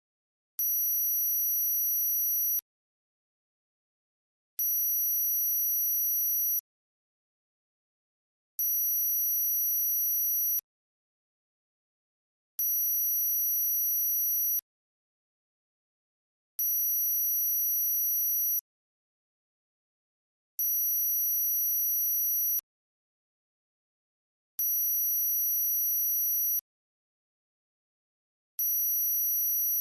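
Synthesized high-pitched pure tone for tinnitus masking. It sounds for about two seconds, stops for about two seconds and comes back in an even on-off pattern, eight times.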